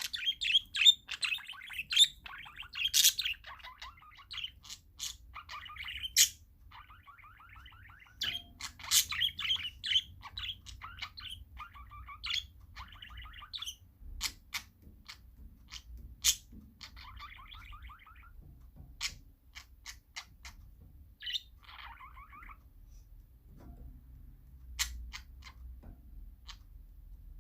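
Parakeets chirping and chattering: a busy run of quick chirps and short trills through the first half, thinning to scattered sharp single calls later on.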